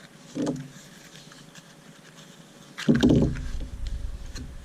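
Cardboard box and paper packing being handled during unboxing: a short scrape about half a second in, then a louder scrape with a low bump about three seconds in that rumbles on for a moment.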